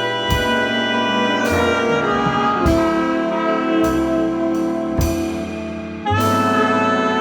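Big band with saxophones and brass playing held chords in a jazz ballad. The chord changes every second or so, with a new bass note under each change.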